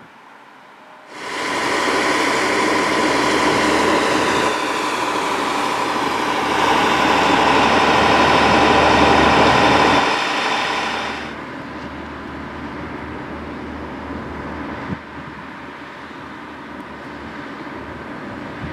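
Railway snow-removal train working close by: a loud steady mechanical noise with a high whine, starting about a second in. About eleven seconds in it drops to a quieter steady running noise.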